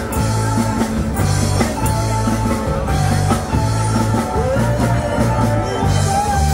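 Live rock band playing: electric guitars, bass and a drum kit, with a repeating bass line and held melody notes.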